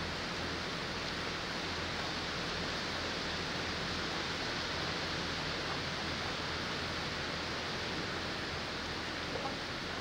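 Steady outdoor background hiss with a low hum underneath and no bird calls standing out, plus a faint click near the end.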